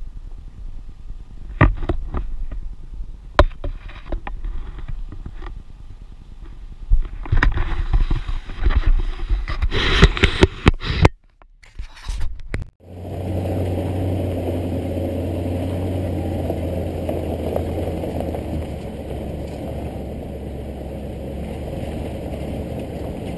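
2009 Hummer H3T Alpha driving on a dirt trail. First come wind buffeting and scattered knocks on a camera held out of the window, loudest about eight to eleven seconds in. After a brief break comes a steady drone of the 5.3-litre V8 and the tyres rolling over dirt.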